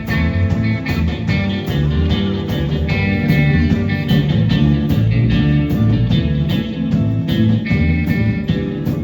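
A live band playing a blues-rock number, with guitar to the fore over a bass line and a steady beat on the cymbals.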